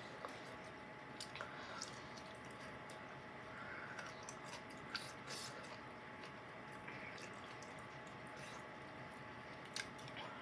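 A person chewing a soft pickle close to a clip-on microphone: faint wet squishing mouth sounds with scattered small clicks, not very crunchy, over steady microphone hiss.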